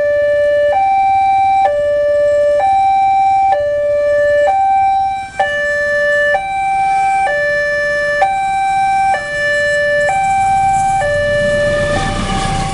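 Railway level-crossing warning alarm sounding, a lower and a higher note alternating about once a second to warn that a train is coming. Near the end a low rumble builds as the train approaches.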